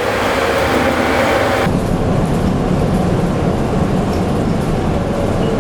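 Interior noise of a city bus. A hissy running sound changes abruptly, under two seconds in, to a steady low drone of the engine and tyres as the bus drives on.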